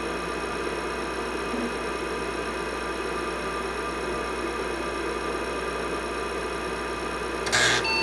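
Steady whir and hum of a running IBM 5150 PC, from its power-supply fan and spinning hard disk, with a short louder burst of noise about seven and a half seconds in.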